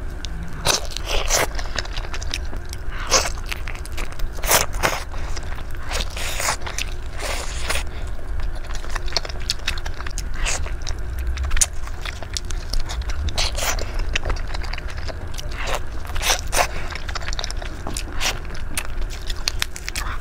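Close-miked eating of sauce-coated chicken: irregular wet bites, smacks and chewing sounds, with a steady low hum beneath.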